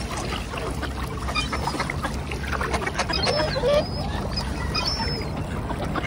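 A mixed flock of whooper swans, mallards, tufted ducks and gulls splashing and jostling on the water, with many small splashes and scattered short high calls. A brief wavering call comes about three and a half seconds in.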